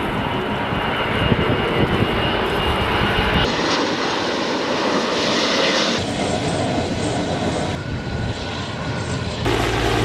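Firefighting fixed-wing aircraft engines running with a loud, steady roar. The sound changes abruptly about a third of the way in, again past the middle, and near the end, as one shot cuts to the next.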